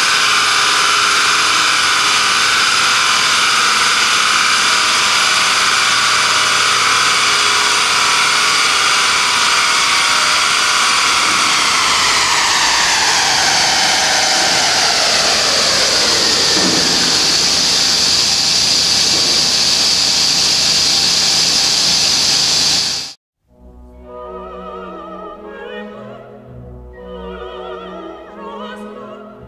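Tuned Audi A4 1.9 TDI four-cylinder turbodiesel running on a Dynojet chassis dyno, a loud steady high-pitched drone from the engine, drivetrain and spinning rollers. About 11 seconds in the pitch falls away over several seconds as the run ends and it winds down. The sound cuts off abruptly near the end and opera music with singing takes over.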